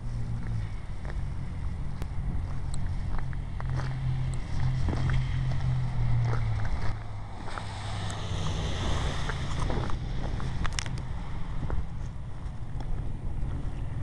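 Outdoor street ambience on a wet, slushy street: a steady low engine-like hum with wind on the microphone, and a hiss that swells and fades about eight to ten seconds in, with scattered light clicks.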